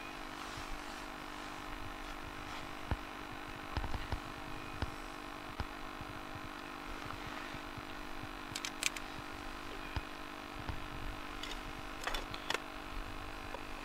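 Scattered light clicks and taps from a wooden ice-fishing tip-up being handled and set over the hole, a few coming close together about nine and twelve seconds in, over a steady hum.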